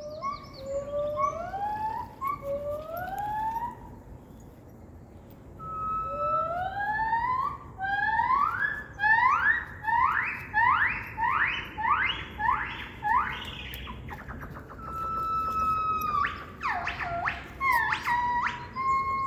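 An unseen zoo animal calling: a long series of clear rising whistled notes. They start slow, speed up and grow louder into a rapid run, then give way to long held whistles that drop sharply near the end.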